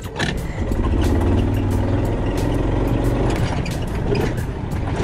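Yamaha golf cart running as it drives over grass: a steady low hum that picks up about half a second in, with frequent light clicks and rattles as it bumps along.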